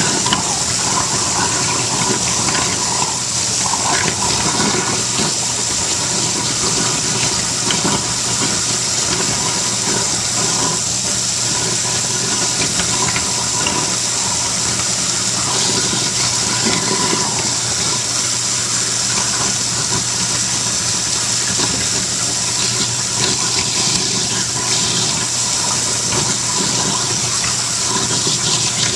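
Half-horsepower kitchen sink garbage disposal running steadily with tap water pouring into the sink, its motor humming as it grinds fruit rinds.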